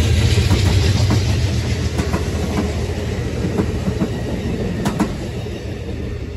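Bilevel Superliner passenger cars of a passing train rolling by: a low rumble with wheels clicking over rail joints. The sound fades as the last car goes by near the end.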